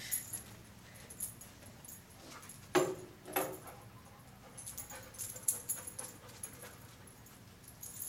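A dog's collar tags and harness jingling in short bursts as it moves about sniffing, with two sharp sounds a little over half a second apart near the middle.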